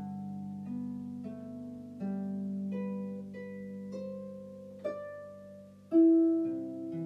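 Harp music: single plucked notes and chords, each ringing on into the next, slow and gentle, with a louder low note struck about six seconds in.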